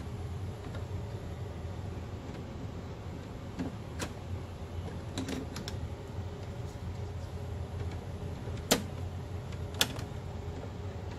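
Plastic clicks and handling knocks from a split-core current transformer sensor being fitted around a wire in a breaker panel: a few light clicks around the middle, then two sharper clicks near the end, over a steady low hum.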